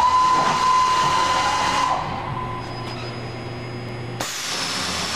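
Fryer MC60 vertical machining center running: a steady high whine over a rushing hiss that starts suddenly and eases after about two seconds. A sudden new rush of hiss comes about four seconds in.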